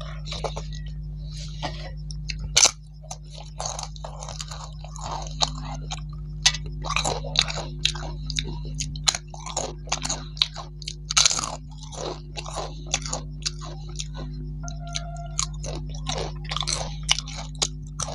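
A crisp papad being bitten and chewed: one loud snap about two and a half seconds in, then a long run of crisp crunches.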